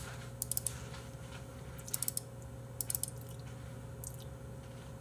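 Computer mouse clicking in quick little clusters, double-clicks opening folders in a file browser, about once a second, over a steady low hum.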